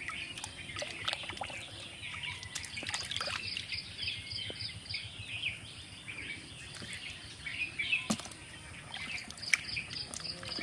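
Muddy water sloshing and splashing as a hand churns and scoops mud in a shallow water hole, with a few sharper splashes, the strongest about eight seconds in. Birds chirp constantly over a steady high insect buzz.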